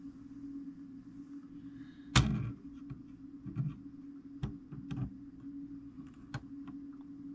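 Antique fusee clock parts being handled on a workbench: one sharp knock about two seconds in, then several lighter clicks, over a steady low hum.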